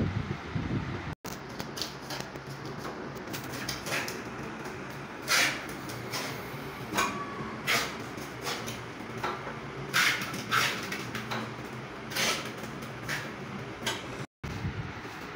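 Irregular sharp knocks and clicks of marble pieces being handled and set in place on a countertop, over a low steady hum.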